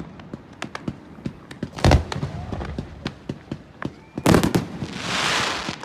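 Fireworks display going off: a rapid scatter of sharp pops and bangs, with two loud booms, one about two seconds in and one just past four seconds, followed by a rushing hiss that swells and fades near the end.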